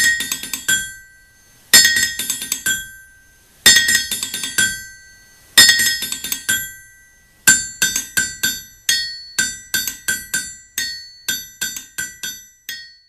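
Intro music of bright, bell-like struck notes: four quick clusters of chiming notes about two seconds apart, then a steadier run of about three notes a second.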